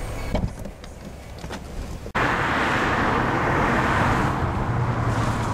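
Steady rush of road and engine noise from a moving car, with a low hum under it. It cuts in suddenly about two seconds in, after a quieter stretch with a few light clicks.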